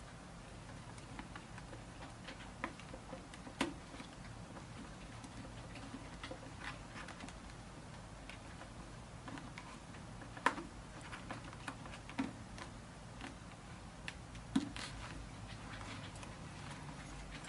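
Irregular light clicks and taps of hands handling a motorcycle helmet's plastic shell and padding, with a few sharper knocks.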